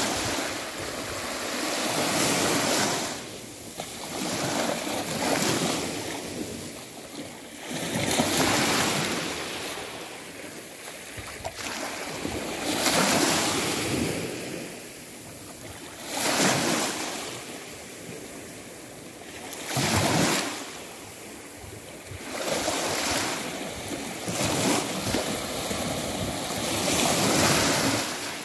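Waves washing in, a rushing surge of noise that swells and ebbs every three to four seconds.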